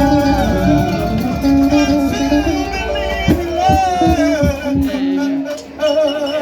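Live band music playing, with a melodic line over it and a brief drop in level about five and a half seconds in.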